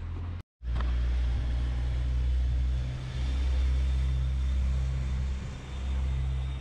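A small car driving past, its engine giving a steady low hum that swells and dips a little. The sound breaks off for a moment about half a second in.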